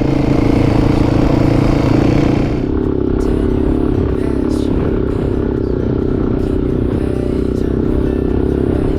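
Adventure motorcycle engine running steadily under way, with a hiss over it; a little over two seconds in, the hiss falls away and the sound gets slightly quieter.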